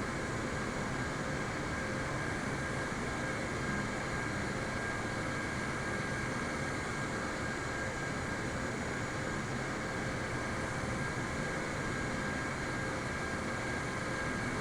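Jet airliner noise: a steady, even drone with a few faint, steady whining tones on top, unchanging throughout.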